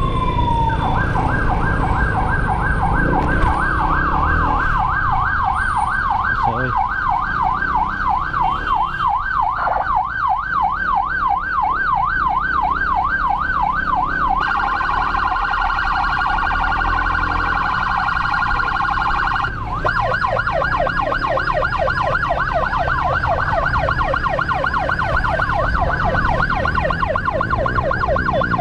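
Electronic emergency siren. It opens on the end of a slow falling wail, then runs a fast up-and-down yelp. Midway it switches to a faster warble for about five seconds, then returns to the yelp, over the rumble of road traffic and wind.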